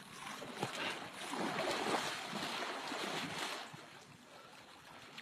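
Water splashing and sloshing, a run of small splashes that swells about a second in and dies down near the end.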